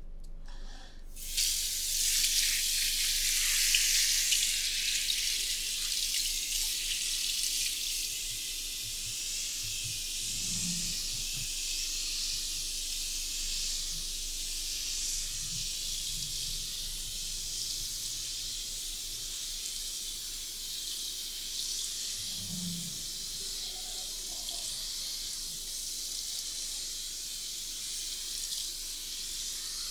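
Water running steadily at a hair-washing basin, switched on about a second in.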